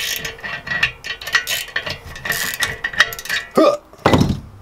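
Quick metal clicks and scrapes as a tap wrench turns a stud extractor on a stud in an air-cooled VW 1300 cylinder head, with a louder knock a little after four seconds in.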